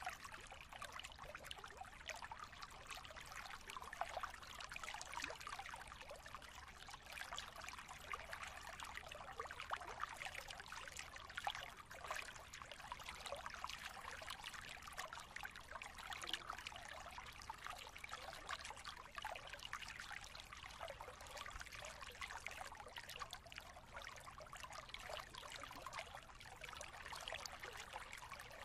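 Steady, faint trickling of running water, like a small stream, with a constant fine crackle.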